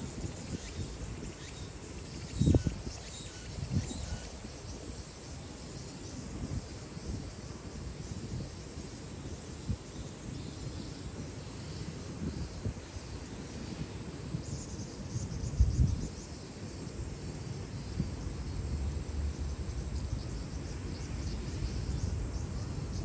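Outdoor ambience: a steady low rumble with faint high insect buzzing, and two brief low thumps, about two and a half seconds in and again near sixteen seconds.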